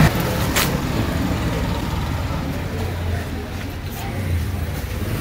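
Street ambience with a steady low rumble of road traffic and a sharp click about half a second in.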